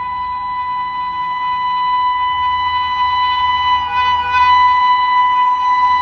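Indian Railways WAP-7 electric locomotive sounding one long, unbroken horn blast as it approaches, growing gradually louder.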